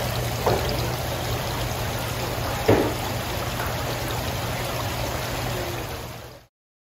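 Water spraying and splashing steadily into a live crab tank, with a couple of brief knocks, one louder about three seconds in. The sound cuts off suddenly near the end.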